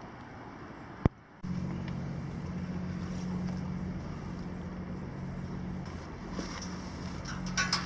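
A steady low engine hum begins just after a sharp click about a second in. A few small clicks and rattles come near the end.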